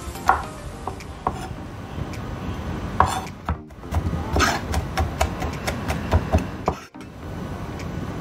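Chef's knife chopping garlic on a wooden cutting board: a few spaced knocks, then a quicker run of chops about halfway through, with the blade rubbing and scraping the minced garlic across the board.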